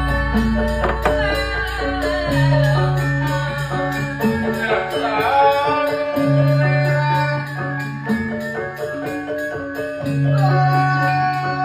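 Sundanese gamelan music of the kind that accompanies wayang golek. Struck metallophone and mallet notes play over a low sustained gong-like tone that comes back every few seconds, and a melodic line glides in pitch a little before the middle.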